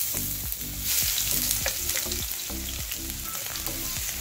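Chopped garlic sizzling in hot oil in a frying pan while being stirred with a wooden spatula: a steady hiss with scattered crackles, brightest in the first second after the garlic hits the oil.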